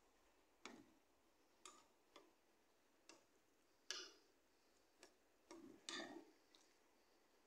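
A ladle knocking and scraping against a metal cooking pot as soup is stirred: about eight light, sharp clinks at irregular intervals, a few bunched together a little before the six-second mark.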